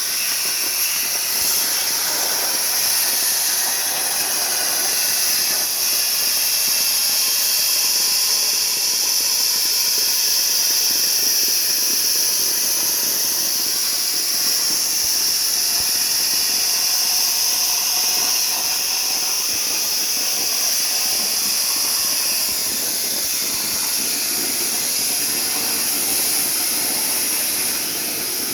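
CNC plasma cutter torch cutting through metal plate: a steady, loud hiss from the air-plasma arc, unbroken throughout.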